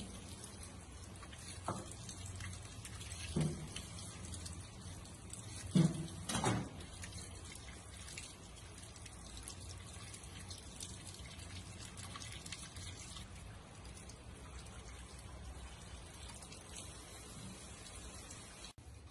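Kitchen tap running into a stainless steel sink as peeled green papaya is rinsed under the stream. A few short knocks in the first several seconds, the loudest about six seconds in.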